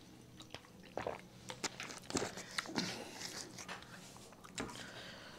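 Quiet drinking and mouth sounds from soda drunk from a plastic bottle: a few soft gulps and small clicks, spaced about a second apart.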